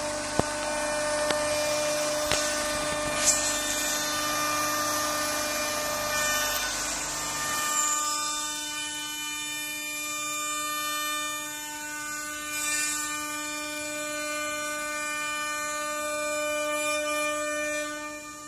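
CNC wood router spindle running with a steady whine while cutting wood, a rough cutting noise with a few sharp ticks over it. About eight seconds in the cutting noise falls away, leaving the spindle's steady whine.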